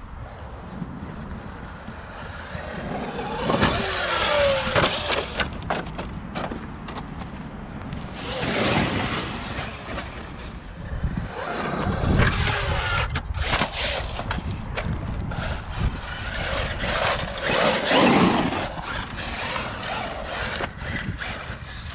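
Traxxas UDR RC truck on a 6S battery, its electric motor whining up and down in about four bursts of throttle, with tyres scrabbling on stony ground, as it is driven at a mound to jump.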